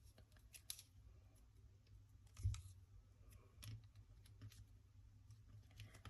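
Near silence with faint scattered taps and clicks of small paper cut-outs and a glue stick being handled on a tabletop, and one soft thump about two and a half seconds in.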